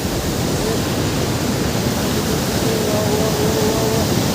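Steady rushing noise of a waterfall, water pouring and splashing without a break, with a faint held voice-like call in the second half.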